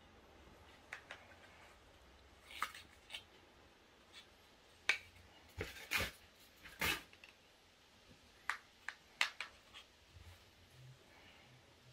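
Scattered light clicks and taps, about a dozen, from hands handling AirPods Max headphones and their packaging during unboxing.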